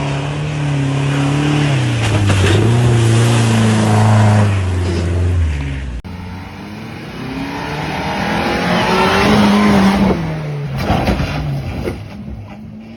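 Off-road 4x4 engine revving hard under load, its pitch rising and falling over a rush of noise. About six seconds in the sound cuts to another engine revving up and down.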